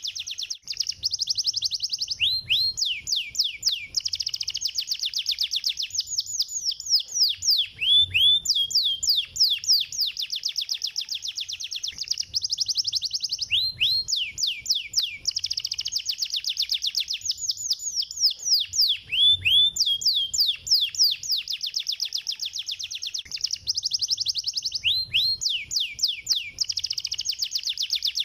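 Canary singing continuous rapid, high-pitched trills, one tightly packed trill running into the next with brief breaks and lower swooping notes, the same run of phrases coming round about every five and a half seconds.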